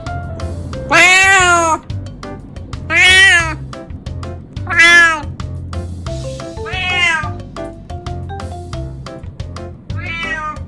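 A 19-year-old cat meowing five times, each call about half a second long with a rise and fall in pitch, the first three loudest and the last two fainter. Background music with a steady beat plays underneath.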